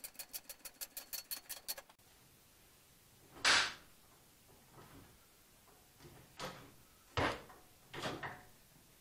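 Hydraulic floor jack being worked under the front of a car body: a fast run of even clicks for about two seconds, then four separate knocks and scrapes, the loudest about three and a half seconds in.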